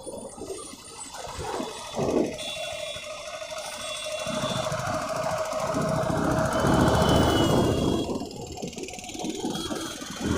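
Motorcycle engine growing louder, loudest about seven seconds in, then dropping away shortly after, with a sharp thump about two seconds in.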